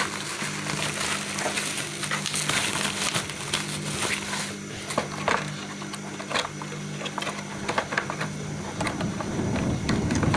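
Packaging being handled and opened, crinkling and crackling with scattered sharp clicks and rustles. A steady low hum runs underneath and stops near the end.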